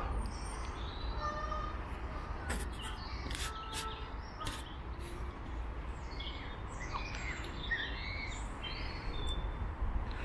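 Small birds chirping and calling in short, varied phrases, with a few sharp ticks near the middle, over a steady low background rumble.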